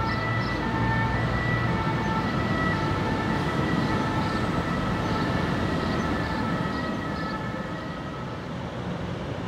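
Alstom Citadis electric trams running across a bridge: a steady electric whine in several tones over a rolling rumble, easing off near the end as the trams move away.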